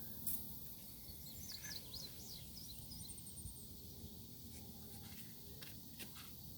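Outdoor ambience: a steady low background rumble, with a bird singing a short run of quick chirps and a brief trill about one to three seconds in. A few sharp clicks stand out, the loudest just after the start.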